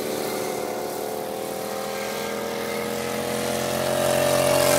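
Racing lawn mower engine running steadily at speed, getting louder over the last second or so as a mower comes closer.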